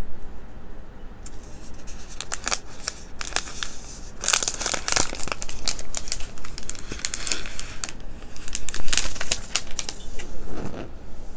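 Protective plastic wrap being peeled off a new iPad Pro and crumpled in the hands: a run of irregular crinkles and crackles, densest about four seconds in and again near nine seconds.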